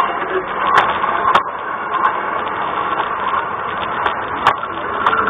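LGB garden-railway model train running on its track, heard from on board: a steady motor whir with a few sharp clicks from the wheels on the rails.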